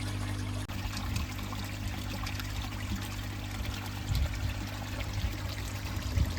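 Water pouring and trickling steadily into a koi pond, with a low steady hum underneath.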